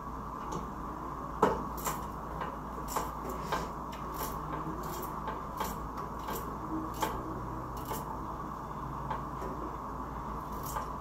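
Small kitchen knife cutting a raw carrot held in the hand over a pot: irregular sharp clicks and taps, one or two a second, over a steady background hum.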